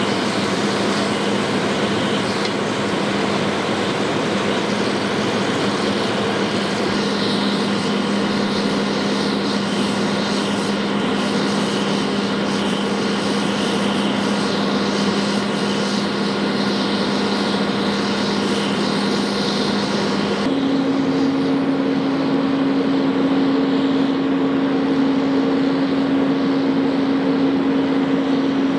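A large engine running steadily at a fixed speed, a constant drone over a broad hiss. About two-thirds of the way through, the drone jumps abruptly to a higher pitch and the hiss turns duller, then holds steady again.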